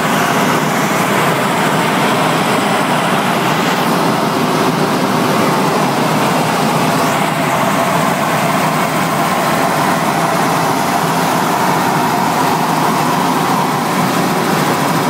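Steady, loud cabin noise of a Robinson R66 turbine helicopter in cruise flight, engine and rotors heard from inside the cabin.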